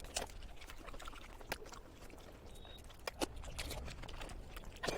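Eating sounds from a meal of panta bhat: a handful of sharp clicks and smacks spread across a few seconds, over a faint low hum.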